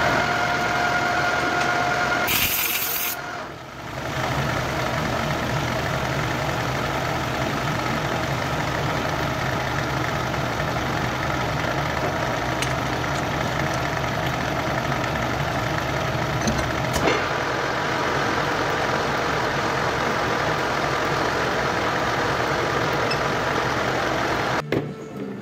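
Old metal lathe running steadily, its motor and geared headstock giving a constant hum. About two seconds in there is a brief harsh hiss, typical of a hand tool cutting into the bore of a hex-nut blank spinning in the three-jaw chuck.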